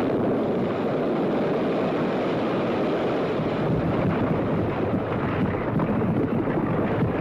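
Radio-drama sound effect of a methane (firedamp) explosion and cave-in in a coal mine: a steady, loud, low rumble of noise from the blast and falling rock.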